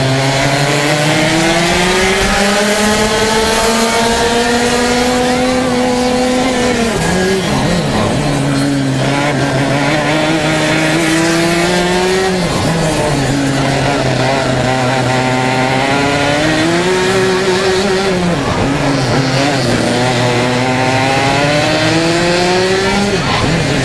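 Racing kart engine at full throttle, its pitch climbing steadily for several seconds and then dropping sharply, about four times, as the kart comes off the throttle for corners.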